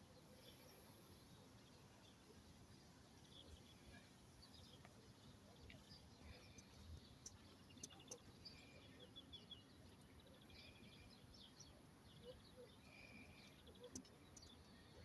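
Faint birdsong: scattered short high chirps and a few quick trills, over a low background hiss.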